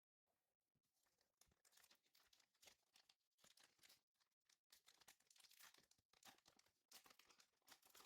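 Faint crinkling and tearing of a foil trading-card booster pack being torn open and handled, an irregular crackle throughout.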